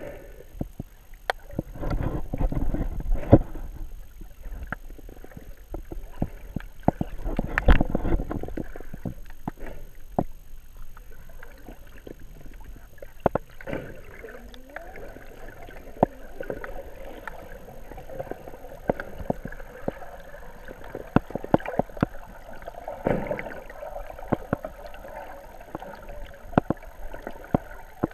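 Muffled underwater sound picked up by a GoPro camera submerged in its housing: water rushing and swirling around the camera, with louder low rumbles about two and eight seconds in and many scattered sharp clicks.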